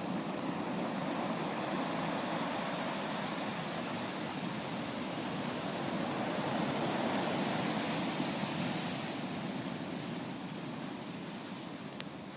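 Heavy storm surf at high tide: a steady rush of breaking waves that swells to a peak about two-thirds of the way through and then eases. A single sharp click comes near the end.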